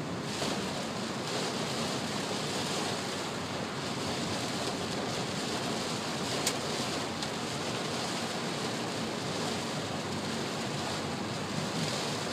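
Steady rush of heavy rain on a moving car, heard from inside the cabin, mixed with tyre hiss on the wet road.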